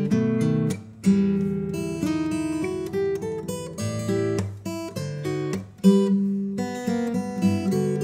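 Seagull S6 steel-string acoustic guitar playing chords that ring on. Hard, sudden attacks come about a second in and again near six seconds.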